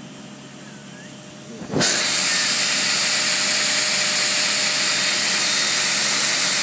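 Stroke sander with a 5 hp three-phase motor switched on a little under two seconds in, coming up to speed almost at once, then running steadily and loudly with an even, hiss-like rush of the belt and motor.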